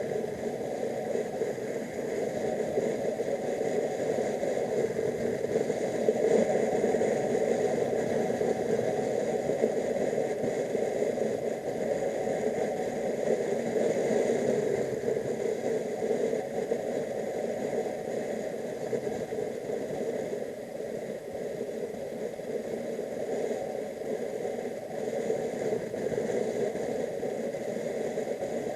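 Motorcycle under way on the road: a steady mix of engine and wind noise, a little louder about six seconds in.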